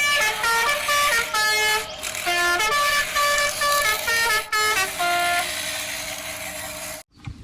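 Background music: a melody of short notes over a steady held tone. The notes stop about five and a half seconds in, then the music fades and cuts off about seven seconds in.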